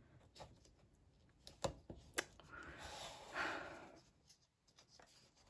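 Faint paper rustling and scraping as punched pages are worked onto a binder's metal rings, with a few light clicks before it. The holes are so tight that the paper has to be pulled to fit.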